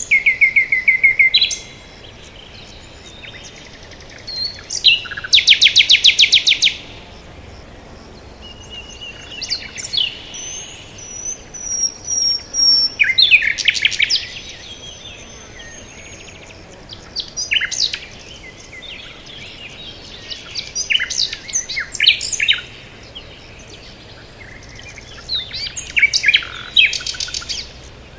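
Songbirds singing in overlapping phrases. Every few seconds comes a loud, rapid trill of quickly repeated high notes, with thinner whistles and chirps in between.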